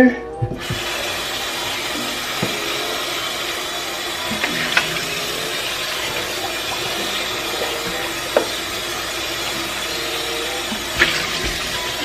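Kitchen faucet turned on about half a second in and running steadily into a stainless steel sink as a black plastic strainer is rinsed under the stream, with a few light knocks of the container.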